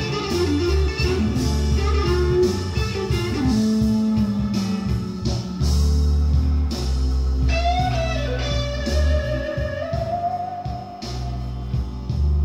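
Blues recording played back through a Yamaha M-80 stereo power amplifier and loudspeakers: an electric guitar plays a lead with bent, sliding notes over a heavy bass line and a steady beat.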